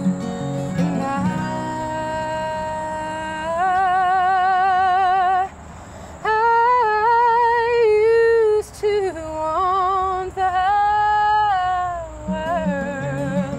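A woman's voice singing wordlessly over acoustic guitar: long held notes with a wide vibrato, a brief break about halfway, then more held and gliding notes. The guitar strumming comes forward again near the end.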